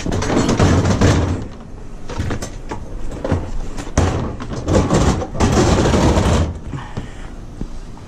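A dishwasher being slid out of a van's cargo floor and over the rear bumper: several spells of scraping and rumbling, with a sharp knock about four seconds in, then quieter near the end.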